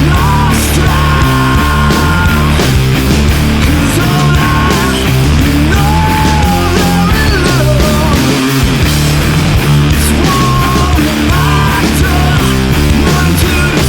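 Loud background rock music with a driving beat and a melodic lead line throughout.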